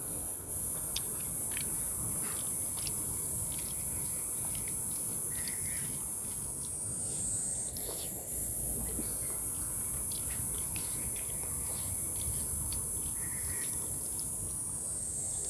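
Cicadas buzzing, a loud, high, continuous drone that breaks off for a moment about eight seconds in and then starts again. Under it are soft clicks and smacks of someone eating rice and curry by hand.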